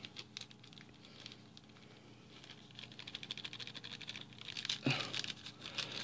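Instant ramen seasoning powder being shaken from a torn foil packet onto dry noodles in a bowl. It makes a faint, rapid patter with light crinkling of the packet, mostly from about two seconds in, and one short louder sound about five seconds in.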